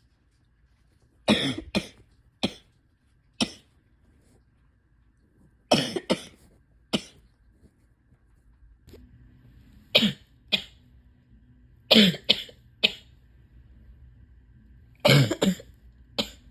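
A person coughing repeatedly, a dozen or so harsh coughs coming singly and in fits of two or three a second or a few seconds apart. The coughs are chesty, from a chest illness on top of asthma and allergies.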